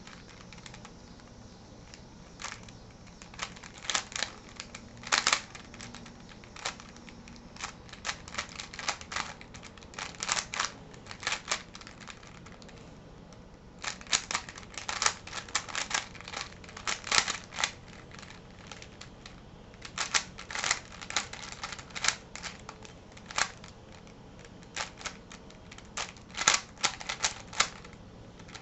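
Plastic twisty puzzle being turned fast in a speedsolve, its layers snapping and clicking in quick runs with short pauses between them.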